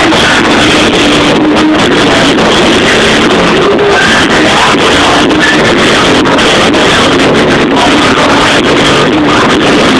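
Loud, dense music at a steady level throughout, with held notes in the low-middle range.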